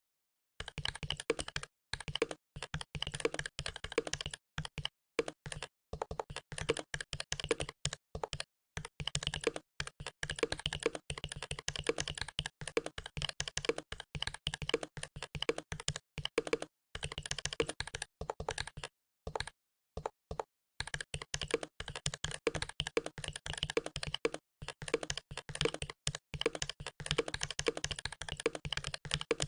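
Typing on a Ducky One 2 SF mechanical keyboard with Cherry MX Red linear switches and PBT keycaps: a fast, steady stream of keystrokes with a few brief pauses, the longest about two-thirds of the way through.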